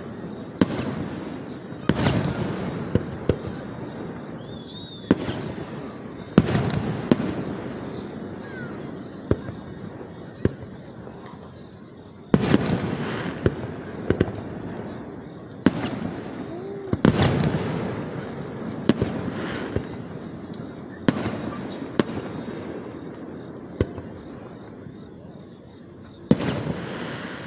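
Fireworks display: aerial shells bursting one after another, each sharp bang trailing off in a long rolling echo, with smaller pops and crackles in between. About five bursts stand out as the loudest, spread through the stretch.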